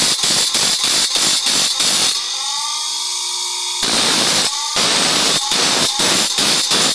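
Bench grinder's abrasive wheel grinding the teeth of a saw blade in a quick rhythmic rasp, about four strokes a second. For a couple of seconds in the middle the wheel spins free with a steady hiss and whine, then the rhythmic grinding starts again.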